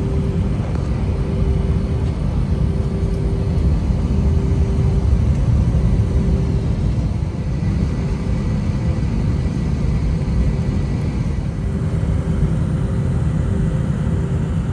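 Jet airliner taxiing, heard from inside the cabin: the engines and wheels make a steady low rumble, with a mid-pitched hum that fades in and out.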